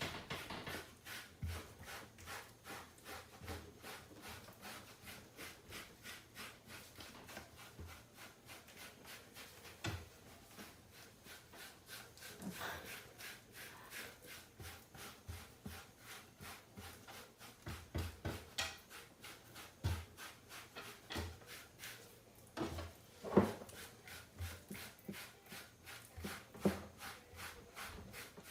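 A brush raking through a cat's fur in quick repeated strokes, about three a second, with a sharper knock about two-thirds of the way through.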